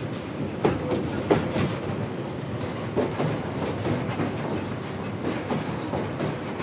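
A train of coal hopper wagons rolling past close by, a steady rumble with irregular sharp knocks as the wheels pass over rail joints.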